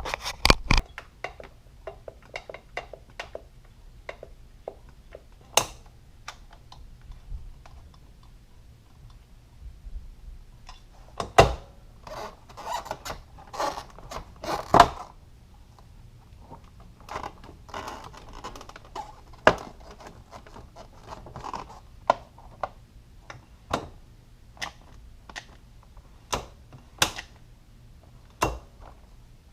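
Scattered clicks, knocks and thunks with bits of rustling, like objects being handled and set down in a small room; two louder knocks stand out in the middle.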